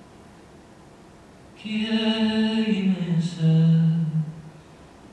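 A male fado singer's voice starts about a second and a half in with a slow closing phrase. It holds long notes that step down to a lower sustained note, then fades away.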